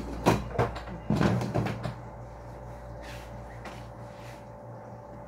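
A lid being set on a metal cooking pot on the stove: a few clattering knocks in the first two seconds. A steady low hum runs underneath.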